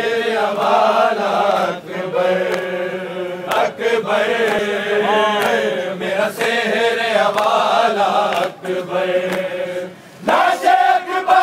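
A crowd of men chanting together in a Muharram mourning chant, many voices overlapping. The chant dips briefly about ten seconds in, then comes back louder.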